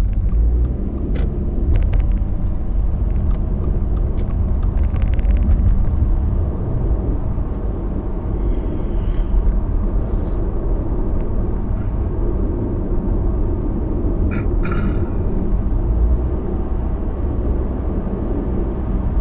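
Steady low rumble of a car's road and engine noise heard from inside the cabin while driving at speed, with a few brief clicks and rattles.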